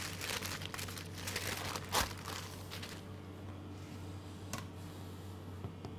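Sheet of baking parchment rustling and crinkling as it is pulled out from under a freshly rolled sponge and crumpled, with a sharper crackle about two seconds in. The rustling dies away after about three seconds, leaving a faint steady hum and one light tick.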